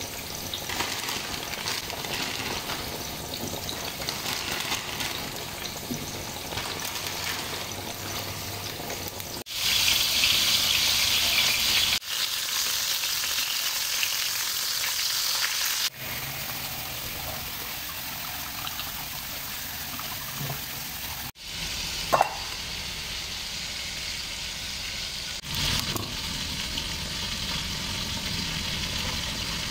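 Hot dogs frying in oil in a pan on a gas stove, sizzling steadily. The sizzle is loudest in a stretch around the middle, and a brief sharp blip comes about two-thirds of the way through.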